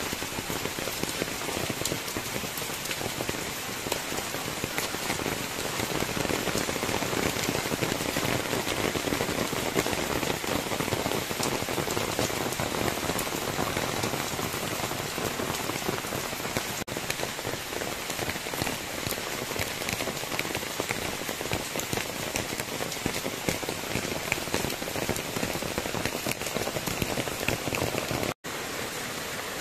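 Steady rain falling on garden foliage, a dense patter of drops. It cuts out for an instant near the end, then continues a little quieter.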